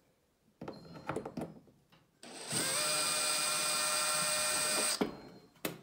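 DeWalt 20V cordless drill/driver backing a screw out of the range's stainless steel panel. A few light knocks as the bit is set come first, then about two and a half seconds of steady motor whine that climbs in pitch as it spins up and stops suddenly near the end.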